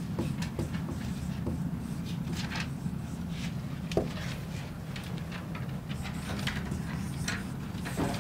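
Dry-erase marker writing on a whiteboard: many short scratchy strokes, with one sharp tap about four seconds in, over a steady low hum.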